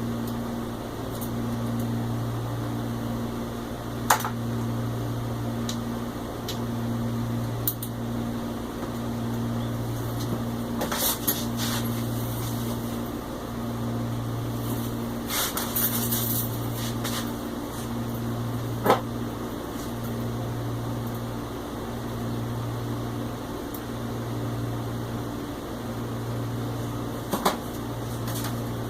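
A steady low machine hum that swells and fades about every second and a half, with scattered sharp clicks and a few short scraping sounds of screws and small hardware being handled and tightened.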